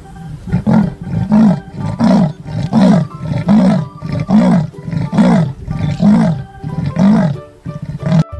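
Leopard giving its sawing call: a series of about ten deep, grunting strokes a little under a second apart, the rhythm slowing slightly near the end.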